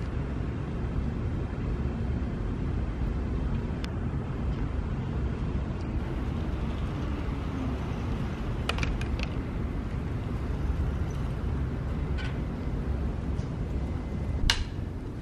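Steady low wind rumble on the camera microphone, with a few faint clicks and a sharper knock near the end.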